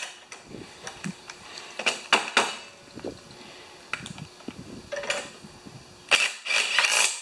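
Black+Decker cordless drill driving bolts into a Briggs & Stratton lawnmower engine in short bursts, with clicks of metal as the bolts and socket are handled. The longest and loudest run of the drill comes about a second before the end and stops abruptly.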